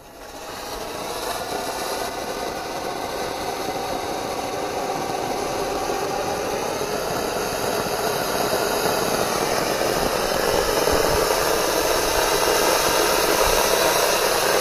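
Firework fountain (Vulkan) burning on the ground, a steady spray hiss that comes in at once and grows slowly louder as the fountain builds.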